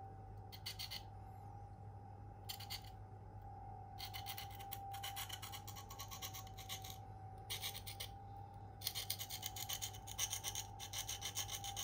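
A Spyderco Endura's K390 steel blade scraped across a coarse Venev F150 diamond stone held in the hand, in runs of quick rasping strokes with short pauses: two brief runs, then longer, busier runs from about four seconds in. This is the coarse stone refining an edge that has already been apexed.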